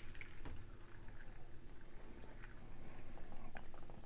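Quiet room tone: a low steady hum with a few faint, short clicks scattered through it.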